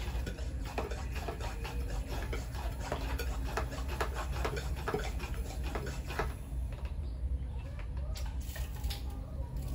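Green plastic hand-pump garden sprayer being pumped and handled: a run of quick light clicks and plastic rattles, several a second, for about six seconds, then a few more near the end, over a steady low rumble.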